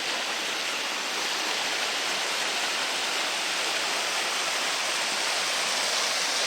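Creek water rushing steadily, getting slightly louder near the end.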